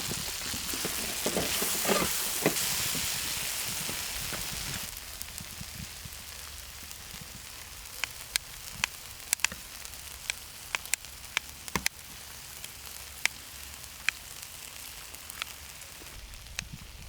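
Spicy small octopus stir-frying on a cast-iron cauldron-lid griddle. For about the first five seconds there is a loud sizzle with scraping stirs. Then the sizzle drops away and scattered sharp pops and crackles follow.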